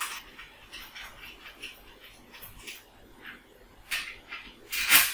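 Small metal clicks and light scrapes of hex bolts being threaded by hand into the clamp that joins a brush cutter's shaft to its engine, with two louder scraping clatters of metal parts near the end.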